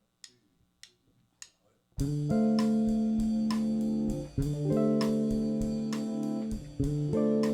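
Three sharp ticks about half a second apart counting in, then a live rock band comes in together about two seconds in: held chords over bass and guitar, with regular drum and cymbal hits.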